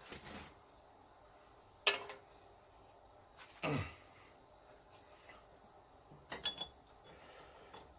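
A few scattered metal clinks and knocks as hand tools and steel parts are handled: a sharp clink about two seconds in, a duller knock a little later, and a quick run of light clicks near the end.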